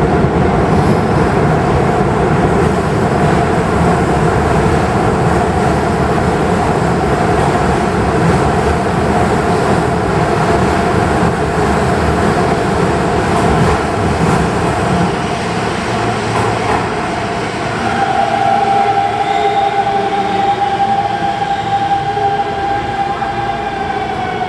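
Electric commuter train in an underground station: loud running rumble of wheels and motors. From about three quarters of the way through, a steady whine rises over it and slides down in pitch near the end as the train slows to a stop.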